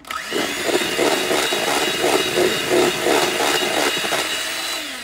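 Electric hand mixer switched on, its motor whining steadily as the beaters churn through pound cake batter in a mixing bowl. It is switched off near the end, the whine falling away as it winds down.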